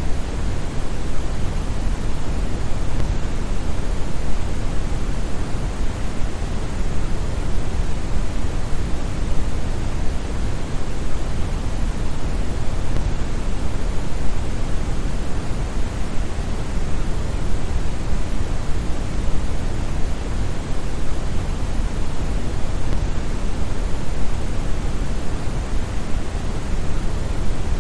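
Steady, unchanging brown noise, deep and bass-heavy with little hiss, like a distant waterfall.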